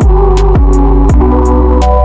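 Electronic background music with a steady beat: deep bass, a falling kick drum about twice a second, crisp hi-hats and held synth chords.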